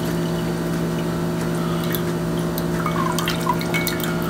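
Pineapple juice trickling and dripping from a tilted can into a mug, with small clicks and splashes, over a steady low hum.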